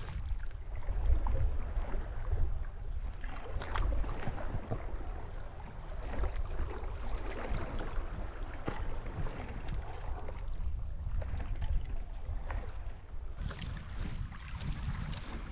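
Wind buffeting the microphone in an uneven low rumble, with small waves lapping and splashing against shoreline rocks.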